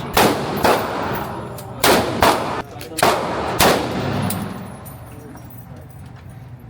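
Gunshots on a shooting range: six sharp shots in under four seconds, coming in loose pairs about half a second apart, each with a ringing tail.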